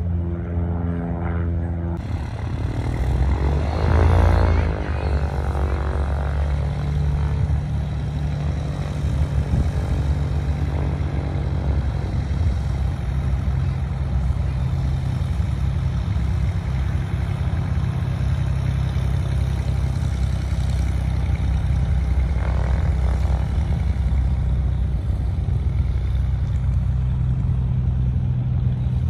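Small propeller airplanes' piston engines. One passes close about four seconds in, its drone swelling to the loudest point with a sweeping, phasing sound, then a steady low engine drone carries on.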